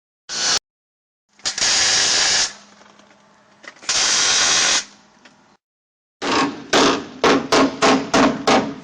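Metal-working shop tools run in short bursts: two bursts of about a second each, then a quick run of about seven short bursts near the end.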